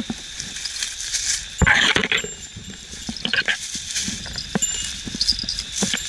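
Plastic bag rustling in the hand and footsteps crunching through leaf litter and undergrowth, irregular and uneven, with the loudest rustle about one and a half seconds in.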